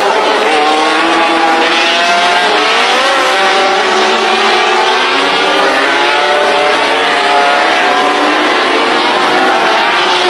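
Formula One racing car engines at high revs, several pitches overlapping and rising and falling as the cars accelerate and lift.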